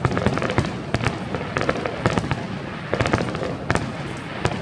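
Fireworks display: aerial shells bursting, heard as a dense, irregular run of sharp bangs and crackles.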